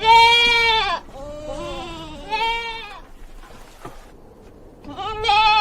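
Bleating, a goat-type call: a loud wavering bleat at the start, several fainter bleats overlapping over the next two seconds, then another loud bleat near the end.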